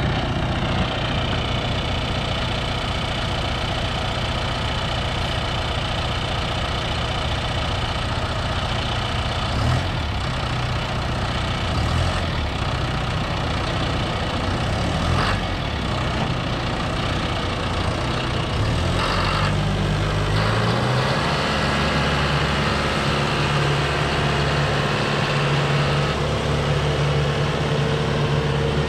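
John Deere 6115D tractor's four-cylinder diesel engine idling steadily, with a few light knocks in the middle. About two-thirds of the way through it speeds up and holds a higher, steady speed as the tractor drives off.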